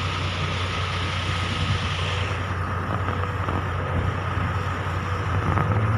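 Fire truck engine running as the truck drives along, a steady low drone under a rushing noise of wind and road that thins out a little about two seconds in.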